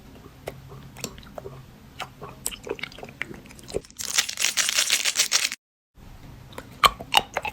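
Close-miked eating of sweets: small sharp clicks and crackles of crunching and chewing, with a dense noisy burst lasting about a second and a half about four seconds in, and louder crunches near the end.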